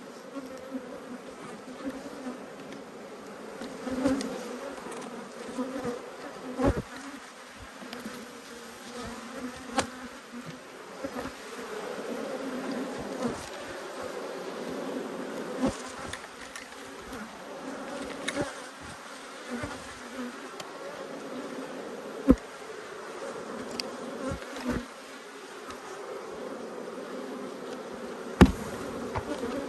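A large colony of honey bees buzzing around an opened hive, a steady hum, with a few sharp knocks scattered throughout.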